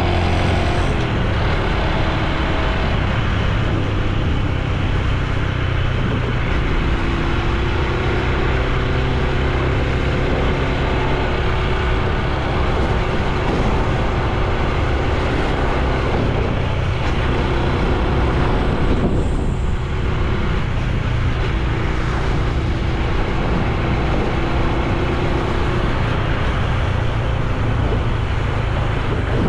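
Honda Super Cub C125's 125 cc air-cooled single-cylinder four-stroke engine and exhaust running under way while riding. The engine note steps up and down several times as the speed changes.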